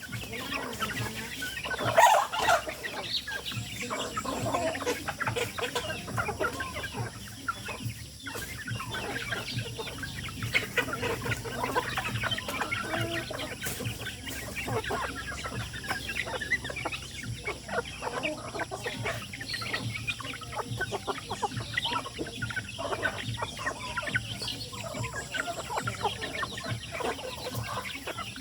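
A flock of chickens clucking, many short calls overlapping, with a louder burst of calls about two seconds in.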